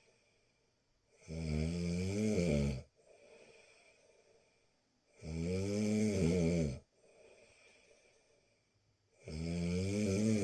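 A person snoring: three loud, buzzing snores about four seconds apart, with quieter breaths between them.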